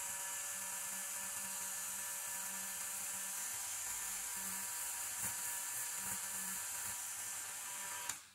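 Dremel rotary tool spinning a small brass wire brush against the rusty steel of a numbering stamp: a steady high whine with a hiss of the bristles, scrubbing off rust. It cuts off suddenly about eight seconds in.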